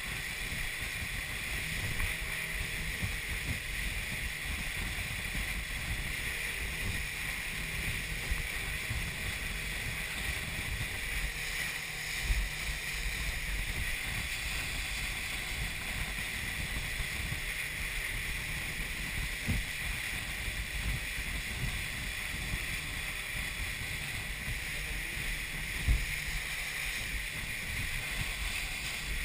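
Open motorboat running at speed: a steady engine and rushing water and wind against the hull. A few sharp thumps come through partway along.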